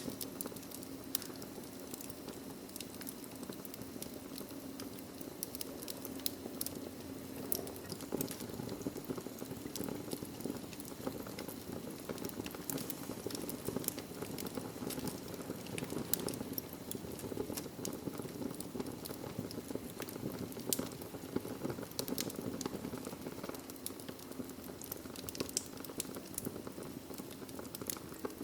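Wood fire burning in a fireplace: a steady low rush of flame with frequent sharp, irregular crackles and pops from the burning logs.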